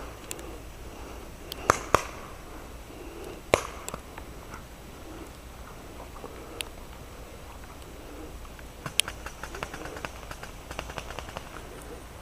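Paintball markers firing: scattered single sharp pops, then a quicker run of fainter shots about nine seconds in.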